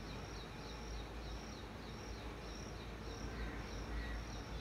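Faint insect chirping, short high chirps repeating about twice a second, over a low steady hum.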